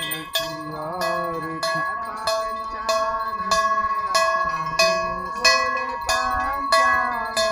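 Hanging brass temple bells rung over and over, about three strikes every two seconds, each ring sustaining into the next, during an aarti. A chanted aarti hymn runs faintly beneath the bells.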